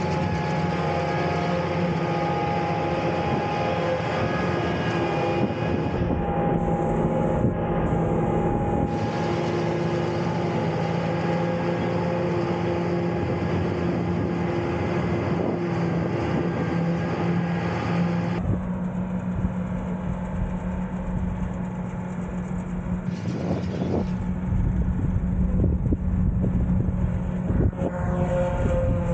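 Heavy farm machinery engine running steadily, with the sound changing abruptly several times.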